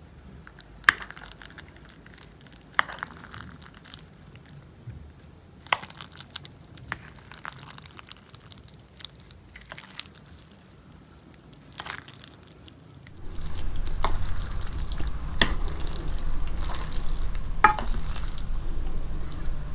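Close-miked eating sounds from a mukbang meal. A few sharp, wet clicks come at first, and then about two-thirds of the way in a louder, steady noisy sound begins, with further clicks over it.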